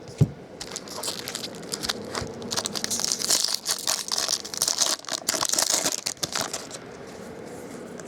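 A sharp knock, then the foil wrapper of a baseball card pack being torn open and crinkled for several seconds. The crinkling stops near the end.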